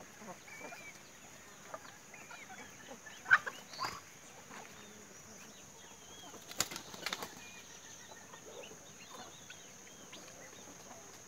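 Faint yard ambience with scattered short bird chirps, and a few brief knocks or rustles about three seconds in and again near seven seconds.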